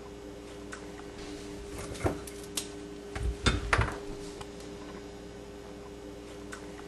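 A steady low hum with a cluster of sharp clicks and knocks about two to four seconds in, a few of them with a dull thump.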